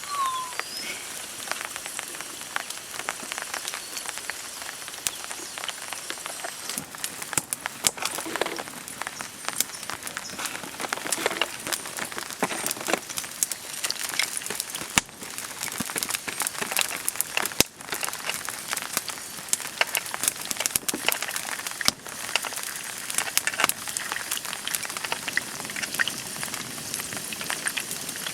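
Steady rain falling, with many sharp drop hits all through.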